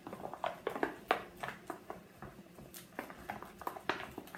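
Slime being mixed by hand or with a spoon: a run of short, irregular sticky clicks and taps, several a second.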